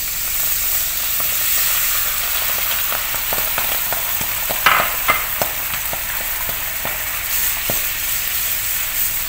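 Thin coconut milk hitting hot ghee in a pan and sizzling hard with a steady hiss. From about three seconds in, a wooden spatula stirring it clicks and knocks against the pan, the sharpest knock near the middle.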